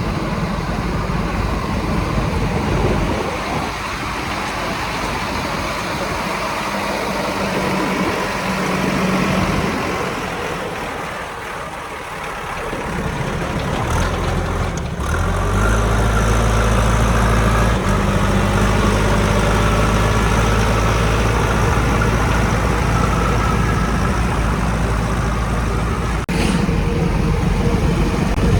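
Heavy diesel machinery engine running. About halfway through, a louder, deeper engine note comes in and holds steady.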